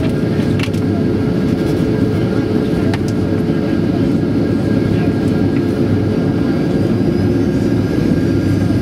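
Steady cabin roar inside a Boeing 737-800 in flight: engine and airflow noise, deep and constant, with a few faint steady tones. A faint high whine rises near the end.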